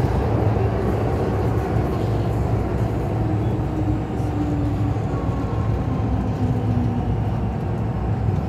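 MTR M-Train heard from inside the car: a steady rumble of wheels and traction equipment as it runs from the tunnel alongside a station platform, with a faint whine that drops in pitch midway as the train slows.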